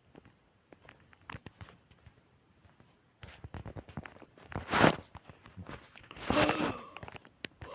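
Footsteps crunching and snapping through dry brushwood and twigs, a scatter of small cracks, with a louder rustling crunch about five seconds in. A breathy noise follows about a second and a half later.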